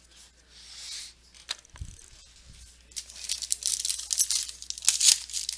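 Foil trading-card pack being torn open and crinkled, a dense crackling that starts about three seconds in. A few soft handling rustles and a light knock come before it.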